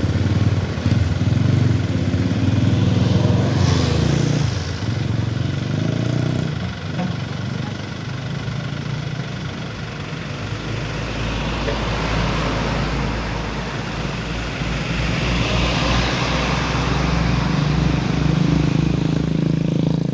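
Heavy machinery's diesel engine running, its sound easing through the middle and building again, with a rushing hiss partway through.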